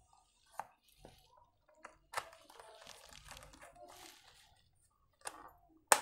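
Small hand screwdriver driving a screw into a plastic case: faint scraping with scattered sharp clicks, the loudest click near the end.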